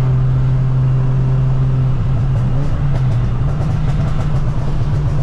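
Inside the cabin of a VW Golf Mk4 driving on a wet road: a steady low engine drone with tyre and road noise, the drone turning uneven about two seconds in.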